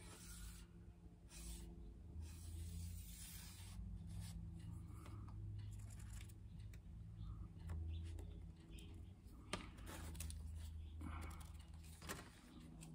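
Permanent marker scratching across galvanized sheet steel in short irregular strokes while tracing around an old bracket, with hands shifting on the metal. A faint steady low hum runs underneath.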